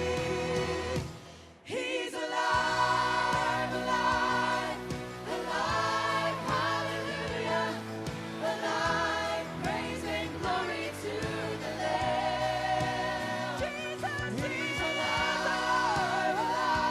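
Live worship music: a band with several voices singing together, breaking off briefly about a second and a half in, then coming back in full.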